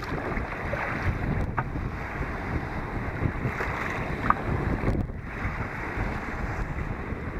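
Strong headwind buffeting the microphone over choppy sea, with waves and paddle strokes splashing against a kayak's deck and hull, and a few short splashes standing out.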